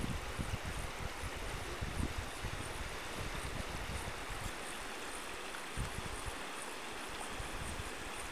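Shallow rocky creek running steadily, with wind buffeting the microphone during roughly the first two seconds.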